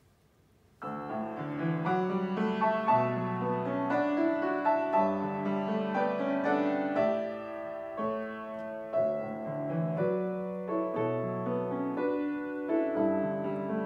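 Acoustic piano playing the solo introduction to a gospel song. It enters about a second in, with chords and a melody.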